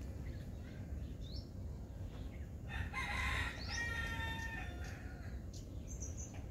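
A rooster crowing once, starting about three seconds in and lasting about two seconds, with a few short bird chirps around it.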